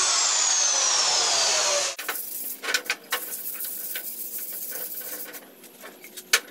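Electric sander on a pine post spinning down, its whine falling steadily in pitch for about two seconds until it cuts off abruptly. Then light knocks and clicks as the wooden post is handled and set on end.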